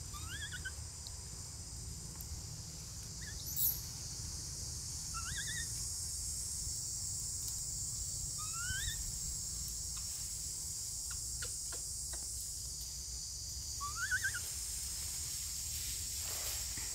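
Steady high-pitched drone of forest insects, with four short rising squeaky calls spread through it.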